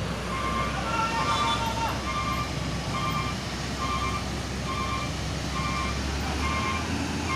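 A truck's reversing alarm beeping at an even pace, a little more than once a second, over the low drone of truck engines running.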